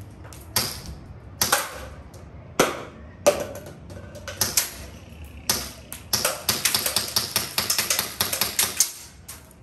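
Gas blowback airsoft pistol (a Glock replica) firing: seven sharp single shots spaced roughly a second apart, then a fast string of shots from about six seconds in until near the end.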